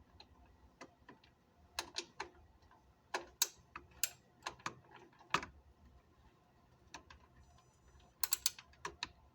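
Socket ratchet turning a 10 mm bolt a couple of turns, left short of tight: scattered pawl clicks a few at a time with short pauses, and a quick run of clicks near the end.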